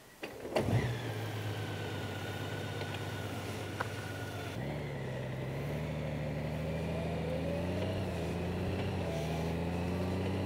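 Honda Gold Wing's flat-six engine starting with a sudden catch and settling into a steady idle, a high whine over it for the first few seconds. About halfway through, the engine note steps up and climbs gradually as the motorcycle pulls away.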